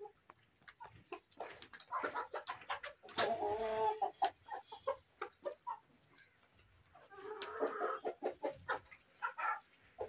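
Flock of chickens, black Australorps among them, clucking as they feed, in many short calls. Two longer drawn-out calls stand out, one about three seconds in and one about seven seconds in.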